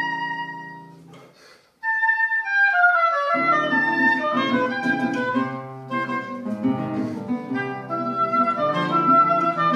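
Duo of a reed woodwind and classical guitar playing a Colombian pasillo. A held note fades into a brief pause. The woodwind then plays a descending run, and the guitar comes in with chordal accompaniment about three seconds in, the melody carrying on above it.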